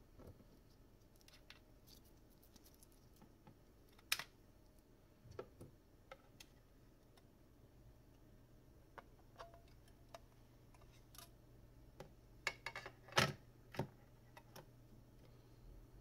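Small plastic clicks and snaps as a Lenovo S5 (K520) smartphone's back housing is unclipped from its frame and the two halves are handled and set down on the tabletop. The clicks are scattered, with one sharp snap about four seconds in and a quick run of clicks and taps near the end.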